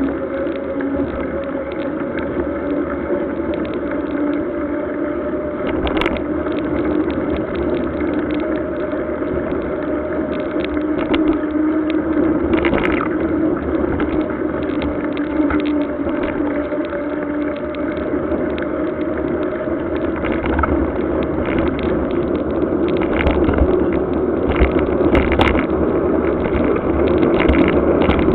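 Mountain bike riding on wet asphalt: a steady hum from the tyres that drifts slightly in pitch, over a constant hiss of road noise, with a few sharp clicks and knocks.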